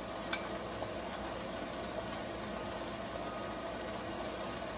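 Diced ham frying in a pot on the stove: a steady sizzle, with one light click about a third of a second in.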